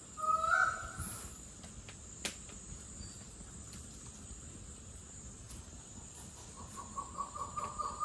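Tropical forest at night: insects keep up a steady high-pitched buzz. A short rising call sounds right at the start, and a single sharp click comes a little after two seconds in. Near the end an animal starts a rapid series of short repeated notes, about five a second, growing louder.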